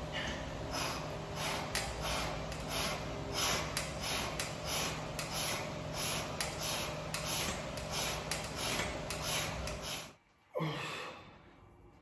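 A man's rapid forceful breathing, about two hard breaths a second, with light clicks among them, while working a set on a plate-loaded leg machine. It stops suddenly near the end, followed by a short groan falling in pitch.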